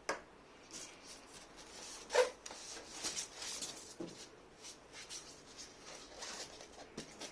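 Handling noises from unpacking steam cleaner accessories: scattered rustling and rubbing with light knocks, one brief louder sound about two seconds in.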